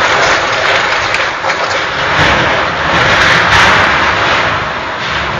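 Storm wind gusting hard against the microphone: a loud, continuous rushing that swells about two and three and a half seconds in and eases near the end.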